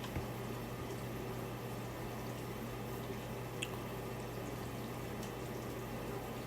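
Steady room tone: a low electrical hum with even hiss, and one faint tick about three and a half seconds in.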